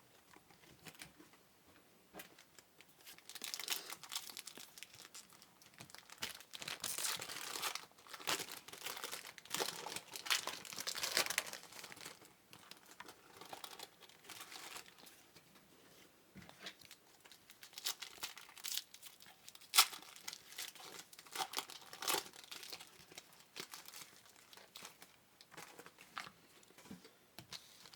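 Trading card pack wrappers being torn open and crinkled, with cards shuffled and handled in irregular bursts of rustling, and one sharp tap about two-thirds of the way in.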